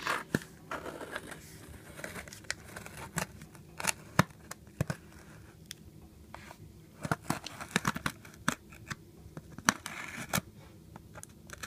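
Packing tape on a cardboard box being slit open: a pointed tool scraped and poked along the taped seam, giving irregular scratches and sharp clicks.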